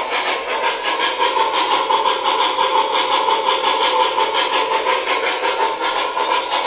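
MTH O-scale Norfolk and Western steam locomotive model's onboard sound system playing steam chuffing: a rapid, even run of chuffs over a steady hiss.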